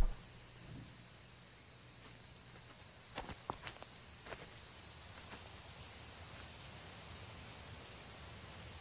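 Faint, steady high-pitched cricket chirping, with a few soft clicks a little past three seconds in.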